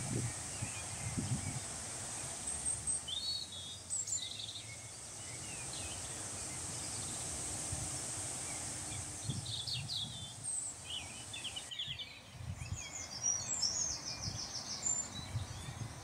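Small songbirds chirping and trilling in short phrases, busiest in the second half, over an irregular low rumble of wind on the microphone and a steady faint high whine.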